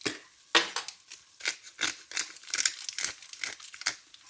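Black pepper being added to the soup: a quick, irregular run of short, dry crinkling crackles, several a second.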